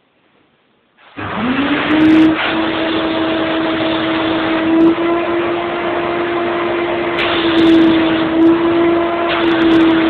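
Hoover Aqua Master tub vacuum cleaner switched on about a second in, its motor spinning up to a steady high whine over a rush of air. It then runs as the hose nozzle is worked over carpet, the suction sound swelling and easing as it moves.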